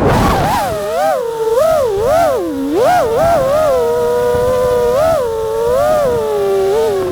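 FPV racing quadcopter's brushless motors whining, the pitch swinging up and down in quick swells as the throttle is punched and eased, holding steadier for a second or so midway, then dipping near the end.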